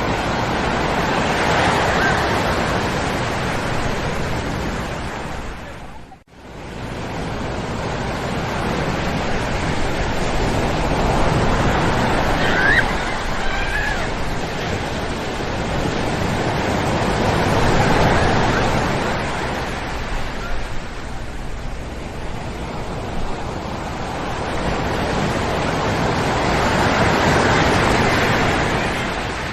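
Ocean surf breaking and washing up on a sandy beach, a steady rush that swells and falls back every eight to ten seconds. The sound cuts out for a split second about six seconds in, and faint distant children's voices come through around the middle.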